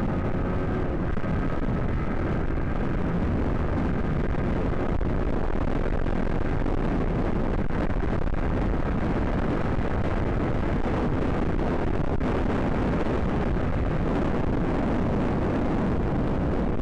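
Steady heavy wind rush and buffeting on a motorcycle rider's microphone at highway speed, with the motorcycle's running and road noise underneath.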